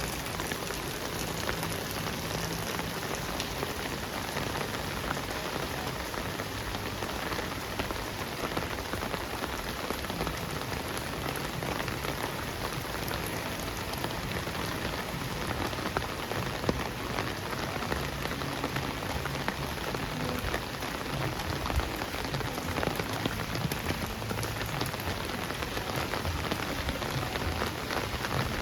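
Heavy rain falling steadily: a continuous hiss with many individual drops ticking against surfaces.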